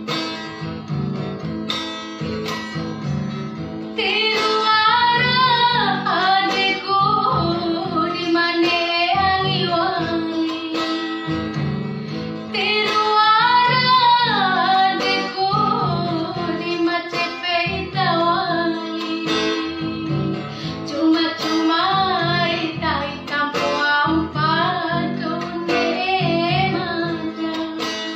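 A woman singing to acoustic guitar accompaniment. The guitar plays chords alone at first, and her voice comes in about four seconds in and carries on over it.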